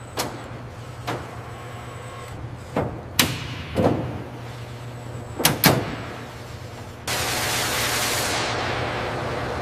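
Factory machinery sound effects: a steady low hum with about seven sharp knocks, two of them close together near the middle. About seven seconds in, a loud hiss starts suddenly and keeps going.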